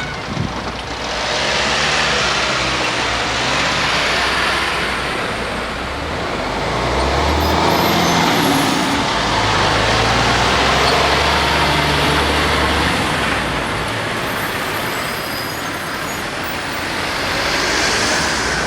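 Road traffic passing by: cars and trucks going past one after another, their tyre and engine noise swelling and fading several times, with a heavy engine running low near the middle.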